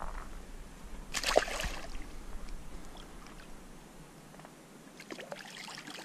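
A channel catfish released into shallow creek water, splashing once sharply about a second in, followed by fainter sloshing and small water sounds.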